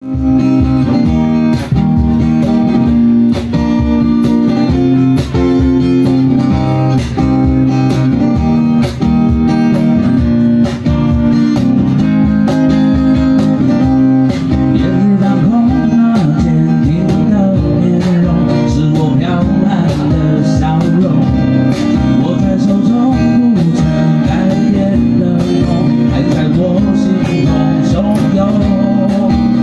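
Live acoustic band playing: two acoustic guitars strummed over a steady cajón beat, with a man's voice singing from about halfway through.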